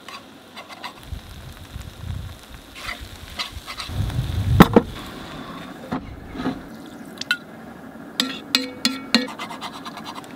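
Metal spoon stirring and scraping in an enamelled skillet, with a louder clatter and thump about four and a half seconds in as the contents are tipped into a cast-iron dutch oven. Spoon clinks and scrapes in the pan continue after that.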